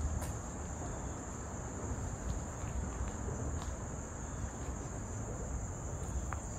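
Steady high-pitched chorus of insects, a continuous shrill trill, over a low rumble with a few faint crunches.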